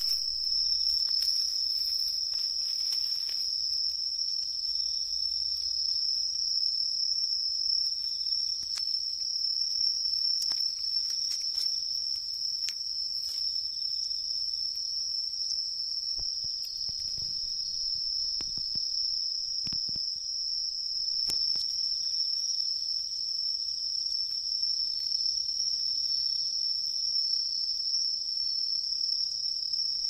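Night-singing crickets: a continuous high-pitched trill that holds steady throughout. Occasional soft clicks and rustles come through over it.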